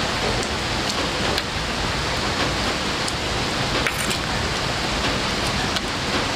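Heavy rain falling steadily, an even dense hiss with a few faint clicks scattered through it.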